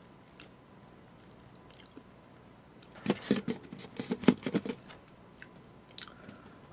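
Close-up chewing of fried sweet and sour pork (tangsuyuk), with a short run of crunchy bites and mouth clicks about three seconds in, lasting under two seconds.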